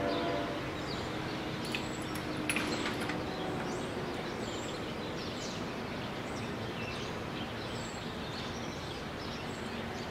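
Birds chirping over a steady background hiss, with a couple of faint clicks about two seconds in.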